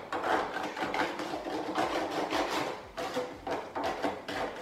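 A spoon scraping and smearing pasta sauce across the bottom of a disposable aluminium foil pan: a rapid, uneven series of short scrapes.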